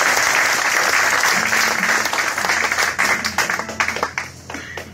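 Audience applauding. The clapping thins to scattered separate claps about three seconds in and dies away near the end.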